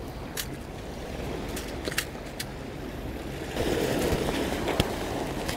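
Sea waves washing against a rocky shore in the wind: a steady rushing with a few short, sharp clicks. The rushing grows louder a little past halfway.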